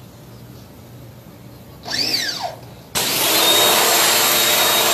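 Pressure washer cutting in about three seconds in: a loud steady hiss of the water jet on wooden slats, with a steady whine from the machine. Before it, a low hum and a brief swooping squeal about two seconds in.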